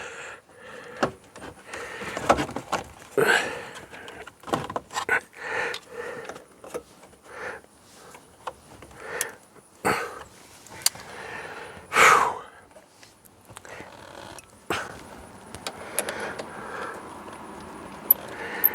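Plastic steering-column and dash trim being pried and handled by hand: irregular clicks, knocks and rustles, with one louder knock about two-thirds of the way through.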